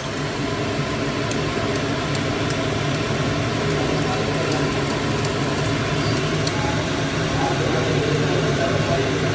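Steady mechanical hum of a running motor or fan: a constant low drone with hiss above it, starting suddenly and holding even throughout, with a few faint clicks.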